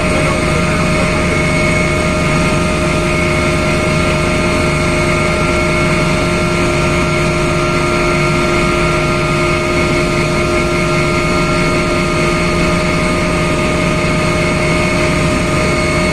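Cabin noise of an AgustaWestland AW139 twin-turbine helicopter in flight on approach: a loud, steady rumble of rotor and engines with several constant whining tones over it.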